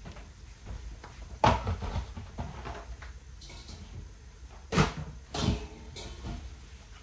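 Sharp knocks and clatter of things being handled: one loud knock about a second and a half in with lighter clatter after it, then two more knocks near five seconds, half a second apart.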